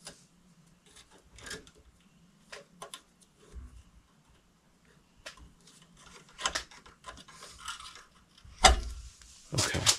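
Scattered small metallic clicks and rasps of a hand wire stripper and stiff electrical wires being worked at a metal junction box. The clicks grow busier in the second half, with a louder knock near the end.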